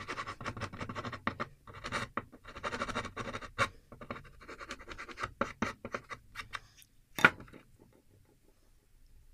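Small metal file scraping in quick repeated strokes across a wooden board, scoring grooves to distress the wood for an aged look. A single sharp knock comes a little past seven seconds in, after which the scraping stops.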